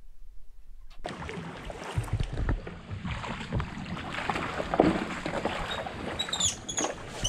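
Wind buffeting an outdoor microphone, with rustling and crackle, starting about a second in. A few short high chirps come near the end.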